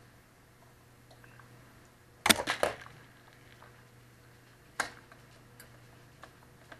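Sharp metallic clicks and clacks of needle-nose pliers working at an e-bike hub motor's freewheel while a ratchet pawl is dug out: a quick cluster of several clicks a little over two seconds in, then a single click near five seconds.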